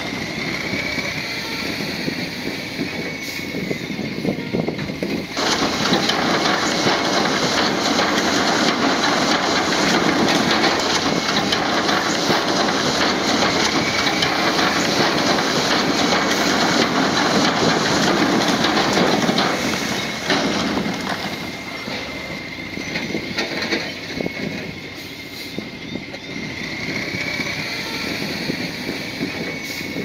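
Bulldozer working: a diesel engine running with steel tracks clattering, growing louder about five seconds in and dropping back about twenty seconds in, with a faint high wavering whine.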